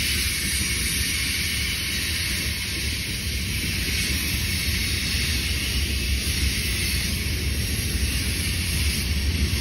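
Freight train cars rolling past on the rails, a steady rumble and hiss.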